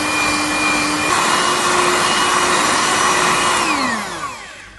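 Electric hand mixer beating chilled cream: a steady motor whine that steps up slightly in pitch about a second in. Near the end it is switched off and winds down in a falling whine.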